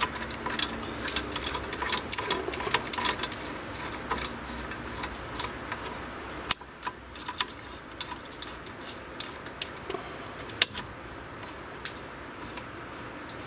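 Light metallic clicking and clinking as a nut is spun by hand onto the threaded rod of a bearing puller, with washers and a socket knocking against it. The ticks come thick for the first few seconds, then thin out to a few sharp clicks.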